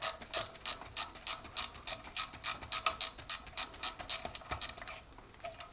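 Ratchet wrench clicking steadily, about three to four clicks a second, as it backs out a long bolt from a Briggs & Stratton engine. The clicking stops a little before the end.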